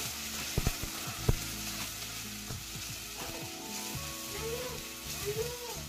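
Tomato, green chilli, garlic and ginger paste sizzling in hot oil with browned onions in a stainless steel kadhai while a steel ladle stirs it. The ladle knocks against the pan a couple of times in the first second and a half.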